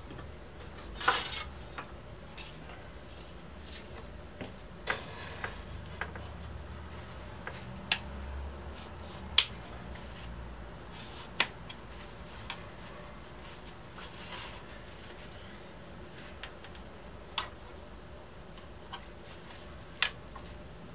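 Scattered sharp clicks and light knocks of wooden braces and small tools being handled on a workbench during guitar-top bracing, about a dozen in all at uneven intervals, the loudest about nine seconds in.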